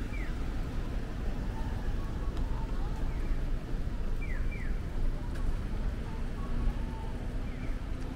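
Low, steady street-traffic rumble, with short falling chirps coming singly and in pairs every few seconds: the bird-call audio signal of a Japanese pedestrian crossing.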